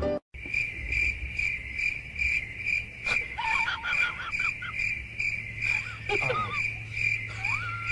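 Cricket chirping steadily, about two chirps a second, over a low hum. Brief wavering high-pitched calls come in over it a few times.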